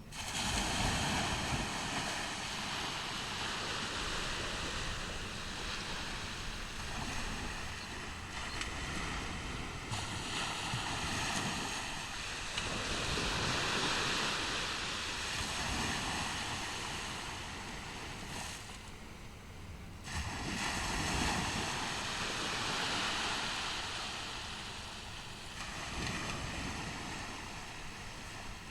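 Ocean surf on a beach: waves breaking and washing up the shore, the sound swelling and ebbing every several seconds, with wind rumbling on the microphone.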